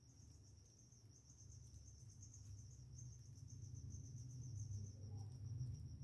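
Faint, steady high-pitched insect chirping that pulses rapidly, over a low hum that grows louder toward the end.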